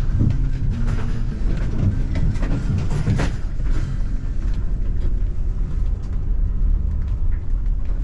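Steady low rumble of a vehicle, with scattered clicks and knocks, one of them louder about three seconds in.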